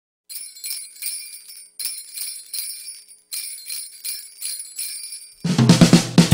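Sleigh bells shaken alone in a quick, steady rhythm as the intro of a Christmas pop song. About five seconds in, the full band comes in louder, with bass and drums.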